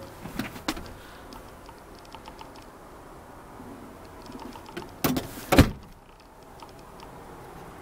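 Sleeper-cab storage cabinet doors and latches being handled: a few light clicks near the start, then two loud knocks about five seconds in.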